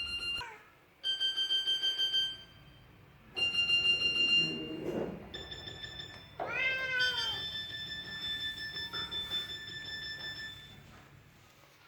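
A series of electronic alarm-style beeps and tones: first a fast pulsing beep, then a steady high tone, then a long pulsing tone. A single cat meow rises and falls about six and a half seconds in.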